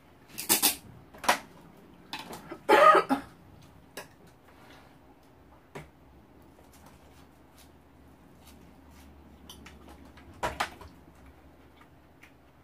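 Intermittent table noises from eating and handling dishes: a few short knocks and louder noisy bursts in the first three seconds, scattered light clicks, and another burst about ten and a half seconds in.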